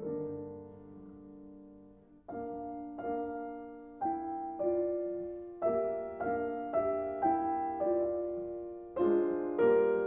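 Slow solo piano music: single notes and chords that strike and fade away, a brief hush about two seconds in, then the playing resumes and grows fuller near the end.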